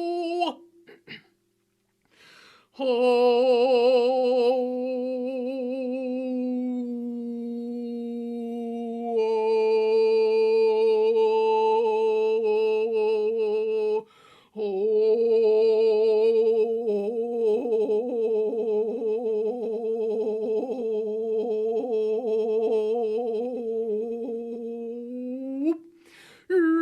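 Wordless vocal toning: a voice humming and singing long held notes with a slow, wavering vibrato, pausing twice briefly for breath.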